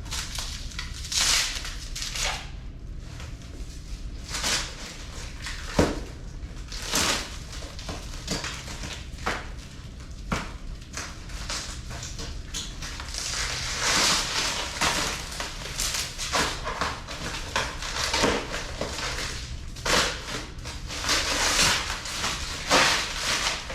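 Plastic wrap and bubble-wrap packaging crinkling and rustling in irregular bursts as it is pulled off and handled, with a few sharp clicks and knocks between.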